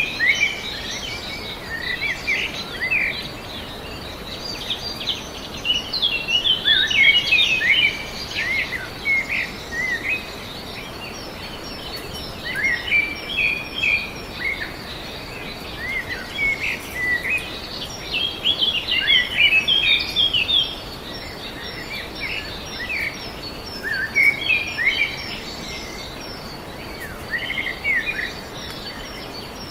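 Several birds chirping and calling in irregular clusters of short, quick notes over a steady background hiss, with a faint steady high tone underneath.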